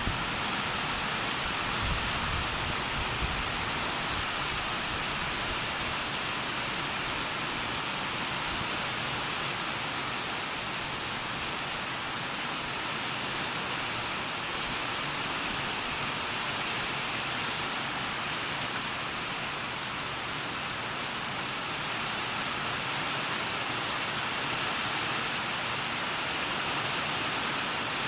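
Heavy downpour: a steady, even hiss of rain falling on surfaces.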